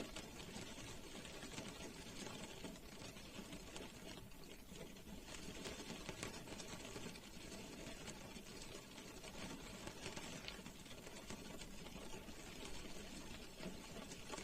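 Rain falling on a car, heard from inside the cabin: a steady, dense patter of many small drops tapping on the roof and glass.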